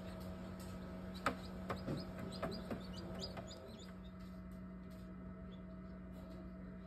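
Newly hatched chick peeping inside an egg incubator: a quick string of short, high, downward-sliding peeps for about three seconds, starting about a second in, over a steady low hum.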